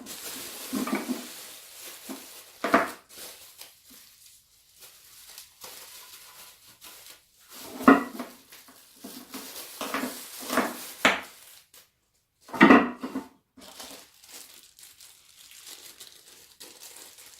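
Unpacking of meat grinder parts: plastic packaging crinkling and rustling, with parts knocking and clattering on a surface in several sharp knocks, the loudest around the middle and about two-thirds of the way in.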